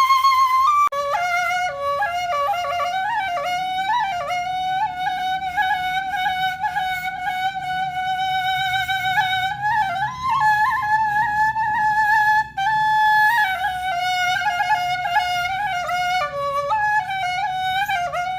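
Background music: a single flute melody with many quick ornamented turns between held notes.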